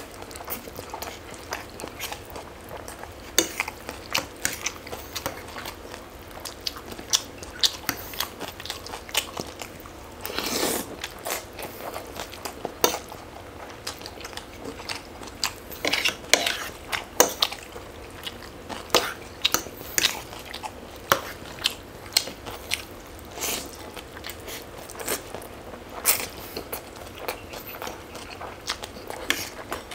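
A person eating: biting and chewing food with crunches, mixed with short clicks of cutlery against dishes, at irregular intervals.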